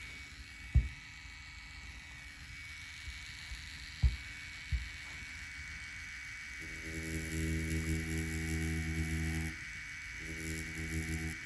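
Spectra Flux rotary pen tattoo machine buzzing as its needle lines lettering into an orange's peel: a steady hum that runs about three seconds, stops briefly and starts again for a second more. A few soft thumps come before it.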